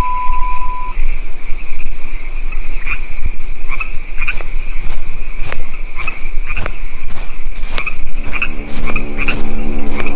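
A night chorus of frogs and insects with a steady high trill, and a single steady beep ending about a second in. From about three seconds in come irregular footsteps. Near the end a low steady buzzing drone comes in, meant as a small plane passing.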